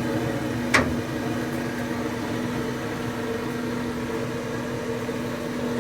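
Electric forge blower fan running with a steady hum, blowing air into a freshly lit coal forge fire; one sharp knock about a second in.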